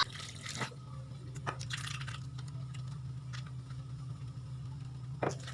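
Hand washing: hands being rubbed together with soft squishing and a few light knocks, over a steady low hum.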